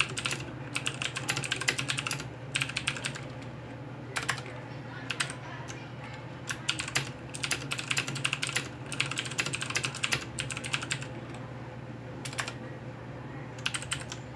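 HyperX Alloy FPS mechanical keyboard with clicky Cherry MX Blue switches being typed on: fast runs of sharp key clicks in bursts, broken by short pauses of about a second.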